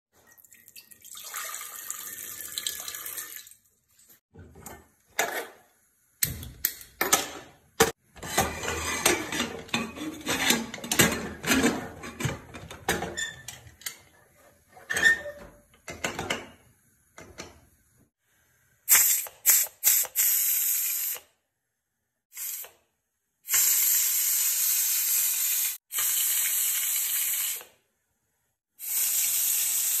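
A pressure cooker being loaded, with metal clattering and knocking as a steel container goes inside and the lid is fitted, after a couple of seconds of rushing water at the start. In the last ten seconds the pressure cooker's whistle lets off steam in loud hissing blasts: a few short ones, then three of about two seconds each.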